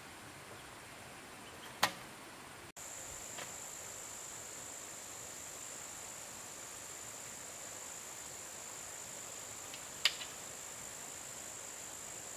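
A steady, high-pitched insect drone, crickets by its sound, coming in after a brief break a few seconds in, over faint hiss. Two sharp knocks, about two seconds in and again about ten seconds in.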